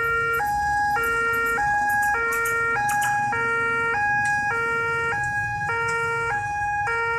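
Railway level-crossing warning alarm sounding its two-tone electronic signal, a low note and a higher note taking turns, each held a little over half a second. It is the warning that a train is at the crossing.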